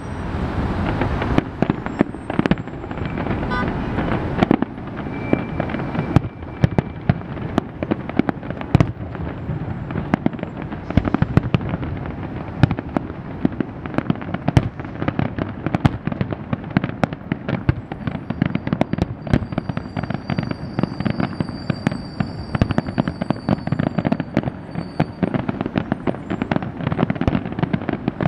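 Aerial fireworks display: a dense, continuous barrage of shell bursts and bangs, many each second.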